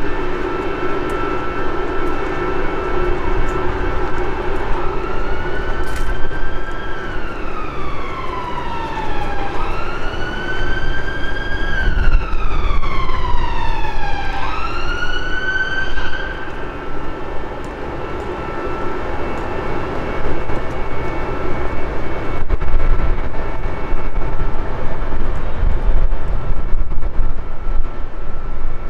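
An emergency vehicle siren wailing, its pitch rising and falling slowly, about two and a half cycles, starting about five seconds in and stopping about eleven seconds later, over steady street traffic noise.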